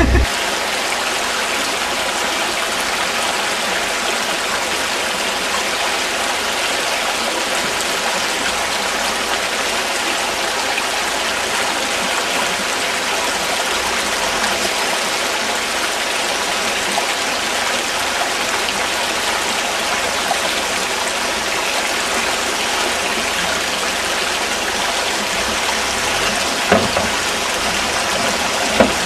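Shallow rocky stream rushing, a steady hiss of flowing water. Two brief knocks come near the end.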